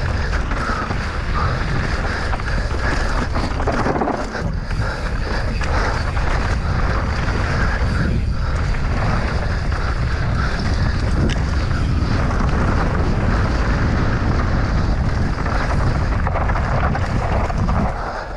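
Heavy wind rush on a mountain-bike rider's camera microphone at speed, over the tyre noise and clatter of the bike on a rough trail. It eases near the end.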